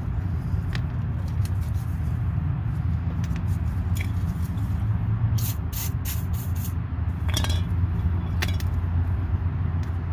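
Light metallic clinks and taps, a quick cluster of them about five to seven seconds in, as the new front shock absorber's lower bracket and bolts are worked into the axle mount. A steady low rumble of background noise runs under them.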